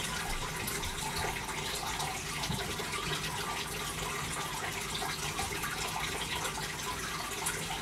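Steady running water, an even trickling hiss that holds unchanged throughout.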